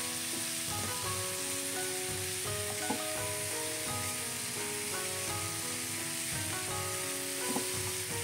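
Chicken pieces, carrot slices and mushrooms sizzling in oil in a wok while a wooden spatula stirs them, with two short sharp knocks, about three seconds in and near the end. Background music, a melody of held notes, plays over the sizzling.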